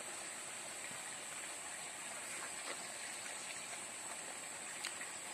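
Steady outdoor background of even, rushing water-like noise with a constant high-pitched hiss over it, and one faint click near the end.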